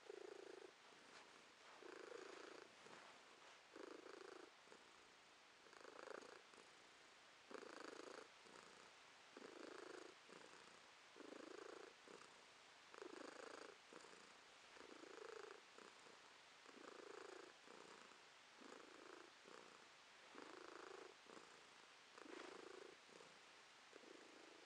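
Domestic tabby cat purring while being stroked, in soft swells that come about every two seconds, one with each breath.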